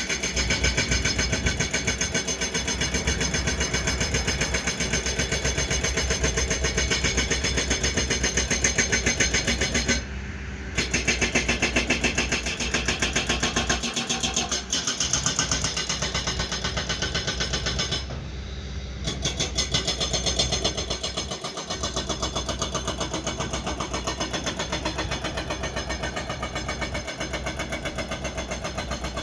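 Excavator diesel engine running steadily with a fast, even pulsing beat. The sound briefly drops away twice.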